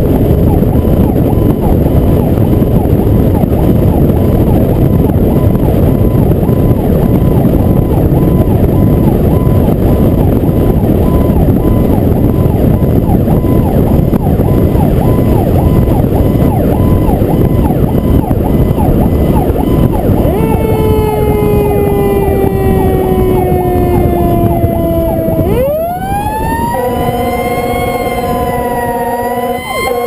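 Fire truck on an emergency run: heavy wind and road noise on the cab-mounted camera. About twenty seconds in, the siren winds slowly down in pitch, then sweeps sharply back up and holds. Near the end, steady horn tones sound over it as the truck slows.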